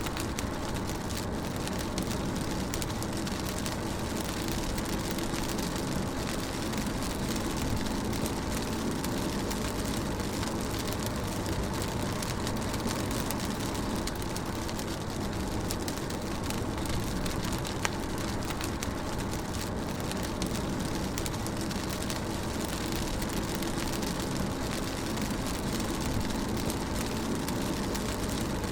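Driving in the rain, heard from inside the car: a steady low rumble of road and engine under an even hiss of rain, with occasional single drops tapping.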